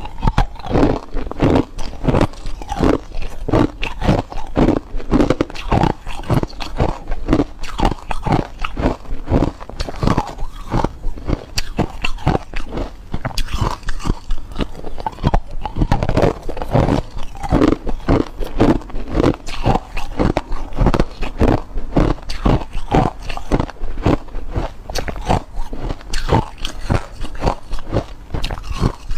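Close-miked crunching of ice cubes bitten and chewed, a steady run of sharp crunches several a second.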